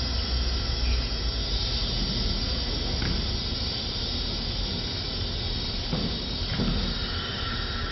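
Electronic soundscape score: a steady hissing noise drone over a low rumble, with a few faint clicks.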